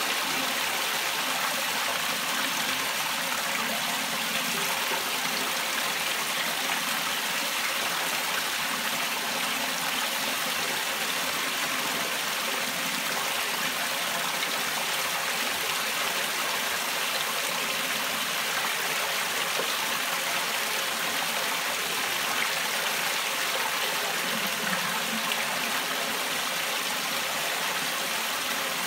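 Water jetting steadily from the holes of a perforated PVC inlet pipe onto the fleece of a homemade fleece filter, splashing and trickling down. The level stays even throughout.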